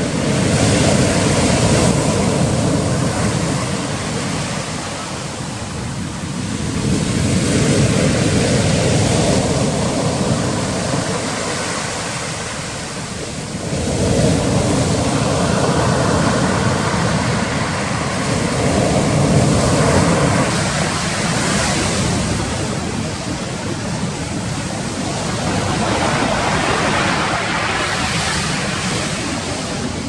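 Black Sea surf breaking on the shore, the rush of the waves swelling and falling away in slow surges every six or seven seconds.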